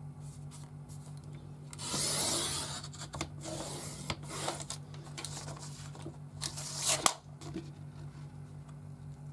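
Fiskars sliding paper trimmer cutting a photo on construction board in several rasping strokes, the longest about two seconds in, with a sharp click near the end. The cut does not go all the way through the board.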